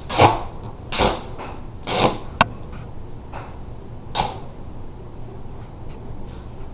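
Duct tape being pulled off the roll in several short, rasping rips, with a sharp click in between.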